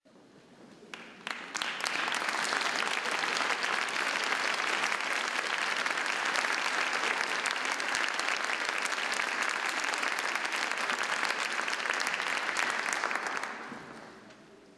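Concert-hall audience applauding, a dense patter of many hands clapping. It swells over the first two seconds, holds steady, then dies away over the last second or two.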